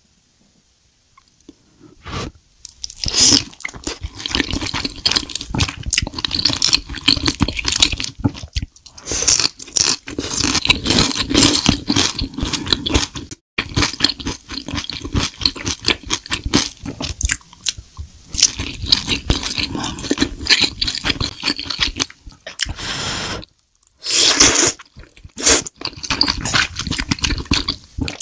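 Eating sounds: crisp crunching bites and wet chewing of fried shrimp tempura, sushi and udon noodles, in dense runs of crackles and clicks. The eating starts about two seconds in and breaks off briefly twice.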